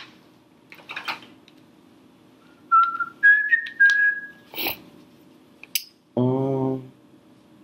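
A man whistling three short notes about three seconds in, the first lowest and the next two a little higher. About two seconds later comes a short, steady hum in his voice.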